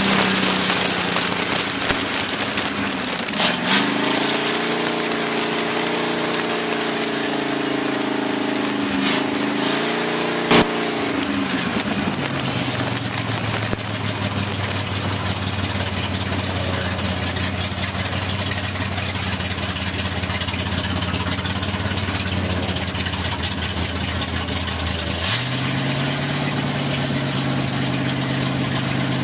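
Dirt-track race car's engine heard from inside the cockpit, running at part throttle with its pitch rising and falling, then dropping to a steady low idle about twelve seconds in and picking up slightly a few seconds before the end. A steady hiss of noise runs under it, with a few sharp knocks in the first eleven seconds.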